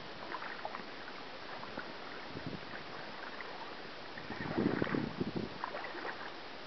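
Shallow river water lapping and splashing, with small scattered drips and trickles and a louder splash about four and a half seconds in.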